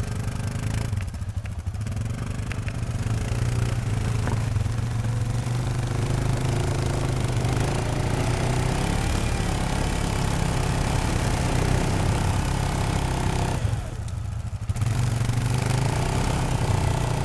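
Yamaha Grizzly ATV engine running steadily under throttle, easing off briefly about a second in and again about three seconds before the end, then picking up.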